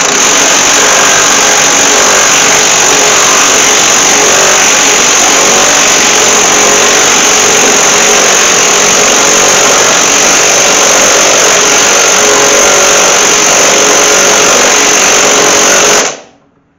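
Ryobi cordless impact wrench running continuously and loudly, driving a nut down a car's strut rod to compress its new polyurethane bushing. It cuts off suddenly near the end.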